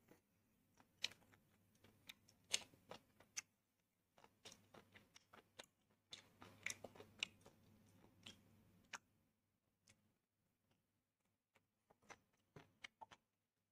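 A person eating tandoori chicken close to a clip-on microphone: faint, scattered clicks and small crunches of biting and chewing, busiest over the first nine seconds and then sparse, with a few more near the end.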